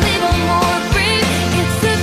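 Pop song playing as background music: a melody, likely sung, over a steady drum beat.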